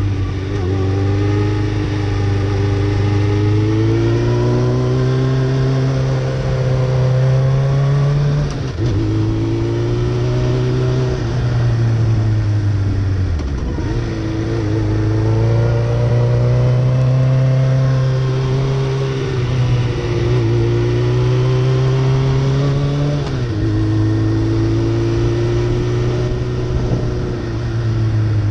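Suzuki Hayabusa inline-four engine running under the rider on a twisty road, its pitch climbing and falling as the throttle is worked through the bends. It drops abruptly a few times, with a steady rush of wind and road noise underneath.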